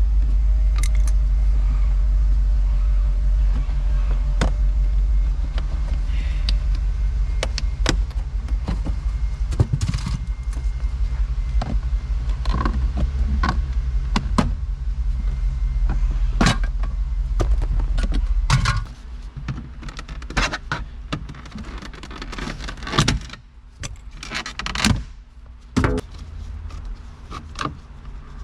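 A loud, steady low drone that cuts off abruptly about nineteen seconds in. Through it and after it come many sharp clicks, knocks and rattles of plastic interior trim and tools being worked loose.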